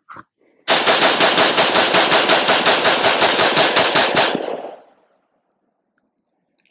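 AR-15 rifle fired in rapid succession, about twenty shots at five or six a second, with a short echo dying away after the last. The run-over magazine feeds the whole string without a stoppage.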